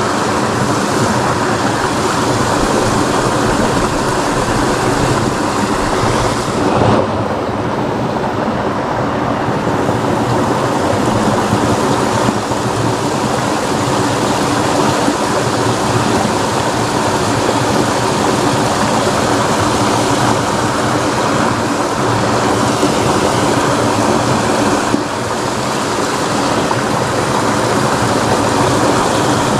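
Steady rushing of fast-flowing water in a small concrete-edged ditch, churning close to the microphone.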